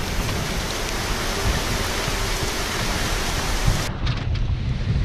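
Heavy rain pouring down, a dense steady hiss. About four seconds in it cuts off abruptly to a duller rush of wind and sea.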